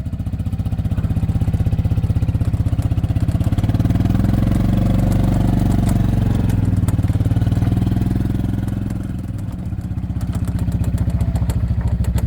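Engine running steadily with an even, pulsing beat. It grows louder over the first second and eases off briefly about nine seconds in before picking back up.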